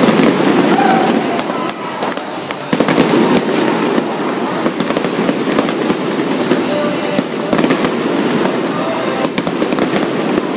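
Fireworks display with many shells bursting in quick succession: a continuous din of overlapping bangs and crackles with no pauses.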